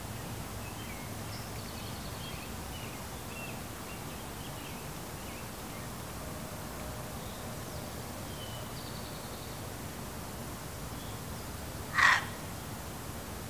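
A fox gives a single sharp, high bark near the end, over a steady background hiss.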